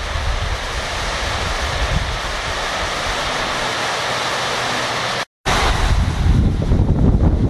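Water from the full Lister reservoir overflowing the dam's arched masonry spillway, a steady rushing noise. About five seconds in the sound cuts out for a moment, and then wind buffets the microphone over the rushing water.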